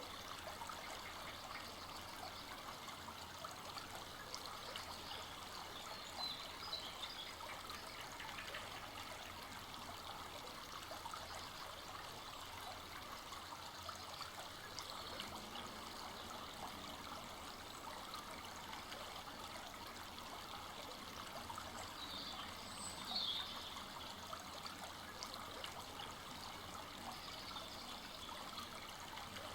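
Full-flowing forest brook running steadily over its bed, a continuous burbling rush of water. Twice a brief, slightly louder high sound stands out above it.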